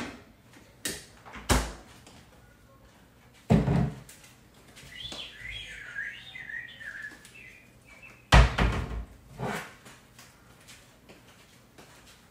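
Refrigerator and wooden kitchen cabinet doors being shut, about five thuds, the loudest a little past the middle. Between them, for about two seconds, a wavering chirping sound.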